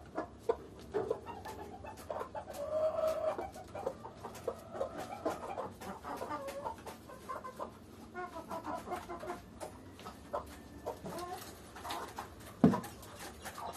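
Chickens clucking, with a drawn-out call a few seconds in and scattered short clicks and taps throughout. One loud thump near the end.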